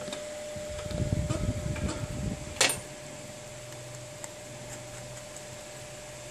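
Handling noise from an iPhone 6 Plus display module as its small side screws are undone with a precision screwdriver: rubbing for about two seconds, then one sharp click, then only a steady background hum with a few faint ticks.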